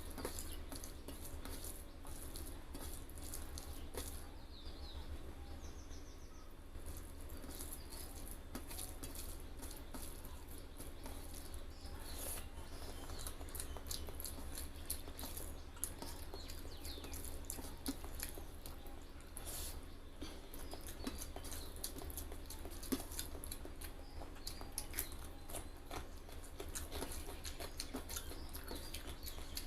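Close-up eating sounds: rapid small wet clicks and smacks of chewing rice and egg curry, with a steady low hum underneath.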